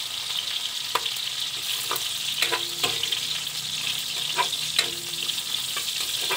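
Garlic cloves sizzling in hot oil in a wok, with a steady hiss. A metal spoon scrapes and clinks against the pan several times as the cloves are stirred and crushed, some strikes ringing briefly.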